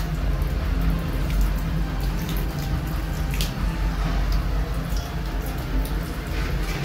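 Water running from a wall tap and splashing onto a tiled floor in irregular drips and spatters, over a steady low hum.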